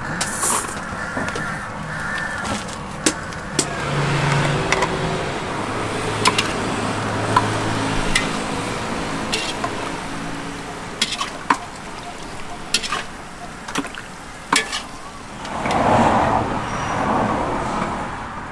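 Busy street ambience: a motor vehicle engine running past, with many scattered sharp clinks and knocks, and a louder swell of noise near the end.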